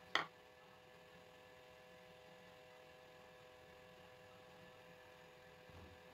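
Faint steady electrical hum made of several fixed tones, broken right at the start by a single sharp click.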